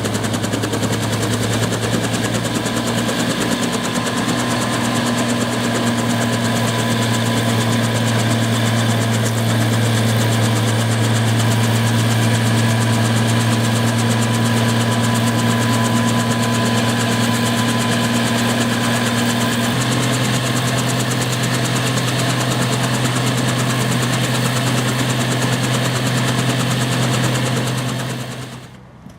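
Bell 47G-5 helicopter's piston engine and rotors running with a loud, steady drone. The low hum shifts in pitch about two-thirds of the way through, and the sound drops away suddenly near the end.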